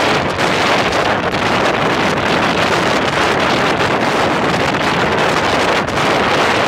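Steady wind buffeting the microphone on a 1942 Ford GPW jeep driving at road speed, with the jeep's engine and tyre noise mixed underneath.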